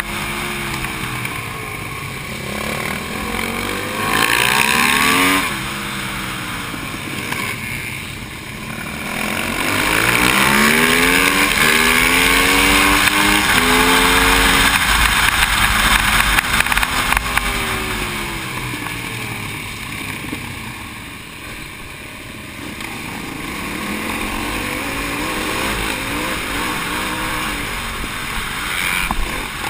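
Aprilia SXV V-twin supermoto engine heard onboard at race pace, its pitch climbing hard and dropping again and again as it accelerates, shifts and brakes for corners. Wind rushes loudly over the microphone throughout.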